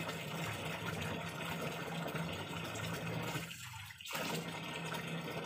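Tap water pouring in a steady stream into a plastic drum, with a steady low hum underneath. The water sound drops away briefly about three and a half seconds in, then comes back.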